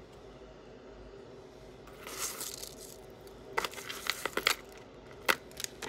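Small metal jewelry pieces clinking and clicking as they are handled and rummaged through. There is a brief rustle about two seconds in, then a quick cluster of clicks and one sharp click near the end.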